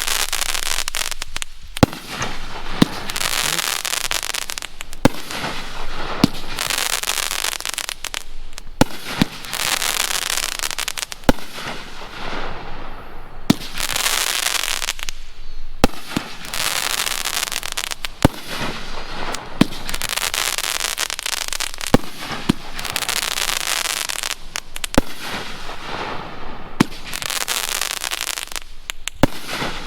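A 12-shot, 500-gram, 2-inch-bore firework cake firing. Sharp reports come every second or two, and each is followed by a long wash of dense crackling from the crackling-tail shells and their breaks.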